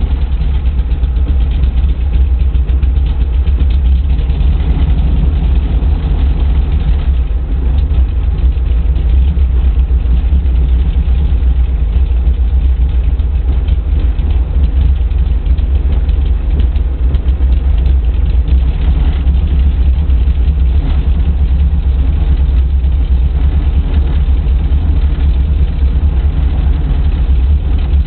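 Brantly helicopter's four-cylinder Lycoming piston engine idling on the ground just after a hot start, a steady heavy rumble heard from the cockpit.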